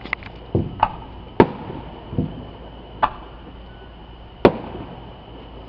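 Fireworks going off: a run of sharp bangs at uneven intervals, about eight of them, the strongest about a second and a half in and again near four and a half seconds in.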